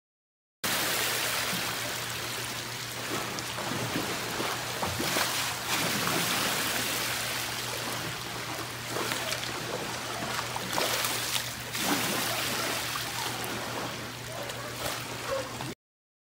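Swimming pool water sloshing in waves and splashing over the edge onto the deck, a continuous rushing and splashing, as earthquake shaking rocks the pool.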